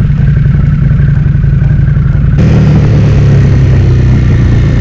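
Motorcycle engine running steadily at low street speed, heard from the rider's own bike, with wind and road noise. The noise gets suddenly louder and fuller about two and a half seconds in.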